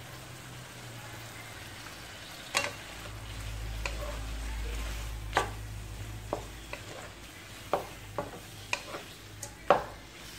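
Shrimp frying in garlic butter in a metal wok, a steady sizzle, while a wooden spatula stirs them. From a few seconds in, the spatula knocks sharply against the wok about a dozen times, the loudest knock near the end.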